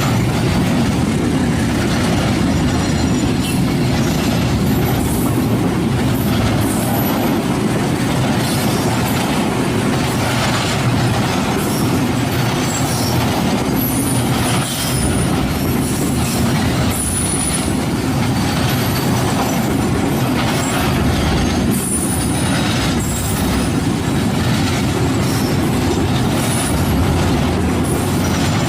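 Train rolling past at close range with continuous heavy rumble and clatter over the rails, scattered knocks and short high-pitched wheel squeals.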